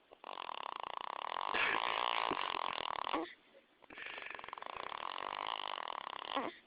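A sleeping baby boy snoring: two long snoring breaths of about three seconds each, with a short pause between them.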